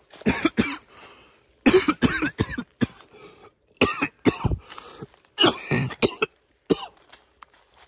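A man coughing in several short bouts and clearing his throat.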